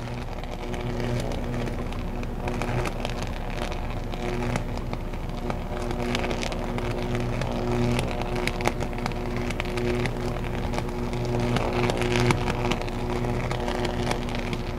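High-voltage electrical arc at a substation on the high-tension line insulators, buzzing with a steady deep hum and crackling continuously, with a sharper crack about twelve seconds in. The sound of a sustained fault arc on energized equipment.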